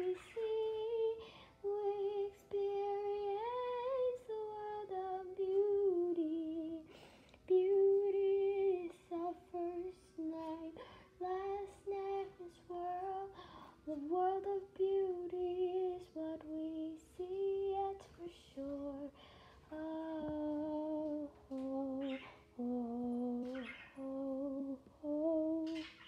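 A female voice singing a slow melody alone, with no accompaniment, breaking off for short pauses between phrases. Brief high chirps from a pet bird come through now and then.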